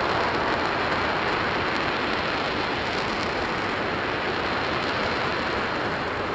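An RS-25 liquid-hydrogen rocket engine firing on a test stand during a hot-fire test, heard from a distance as a steady roar that eases very slightly.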